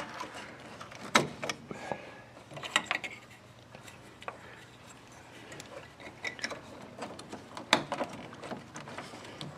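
Plastic wiring connectors and harness being handled and pushed together by hand, giving scattered clicks and rattles: a sharp click about a second in and another near the end, with softer handling noise between.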